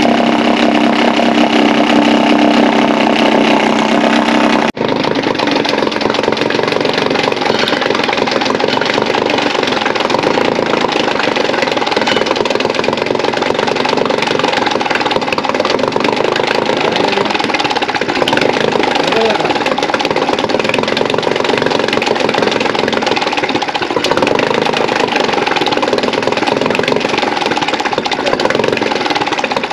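Suzuki DF2.5 four-stroke single-cylinder outboard engine running steadily at idle, freshly re-jetted with a larger main and pilot jet, while its idle mixture screw is being set. The sound breaks off abruptly about five seconds in and resumes at a steady idle.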